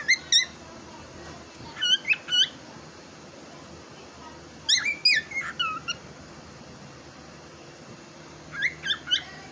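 Cockatiel chirping in four short bursts a few seconds apart, each a quick run of high, sliding chirps.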